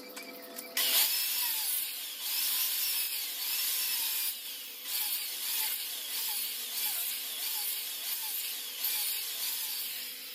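Budgerigars chattering, a dense scratchy run of short rising-and-falling chirps that starts suddenly about a second in, over a faint steady hum.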